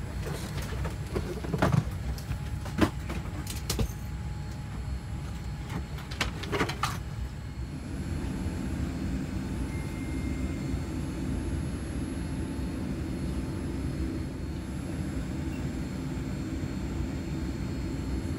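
Steady low rumble of a Boeing 787 airliner's cabin noise. A few sharp clicks and rustles come in the first seven seconds.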